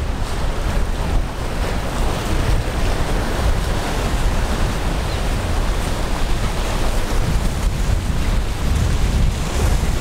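Wind buffeting the microphone over the steady wash of ocean surf, a dense rushing noise heaviest in the low end.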